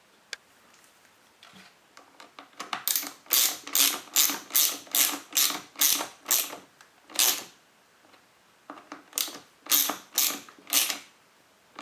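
Hand ratchet driver clicking in short strokes while tightening screws, about two ratchet bursts a second in two runs with a pause just after the middle.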